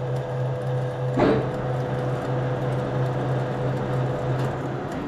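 Electric drill motor running steadily while drilling out a steel boss, with one sharp knock about a second in; the motor stops near the end.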